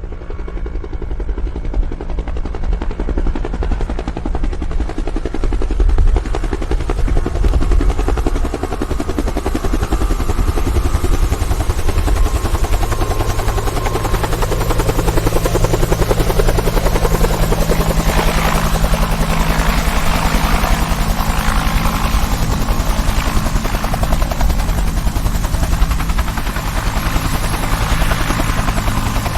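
Helicopter running close by, a dense low rotor beat with a thin steady whine above it. It grows louder over the first several seconds, then holds steady.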